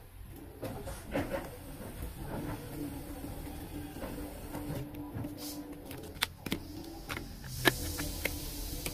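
Photocards and clear plastic card sleeves being handled and shuffled by hand: rustling, with a run of sharp clicks and crinkles in the second half, the loudest about three-quarters of the way through. A steady low hum runs underneath.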